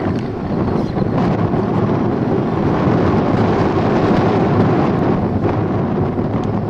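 Wind blowing across the microphone, a steady low rush of noise.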